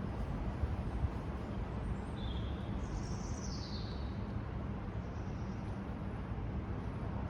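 Storm wind buffeting the microphone as a steady low rumble. A bird chirps briefly near the middle: one short high note, then a call that falls in pitch.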